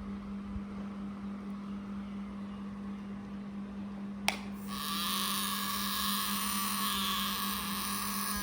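A steady low hum, then a single click about halfway through, after which the small DC motor of a homemade mini angle grinder starts and runs with a steady high whine and hiss.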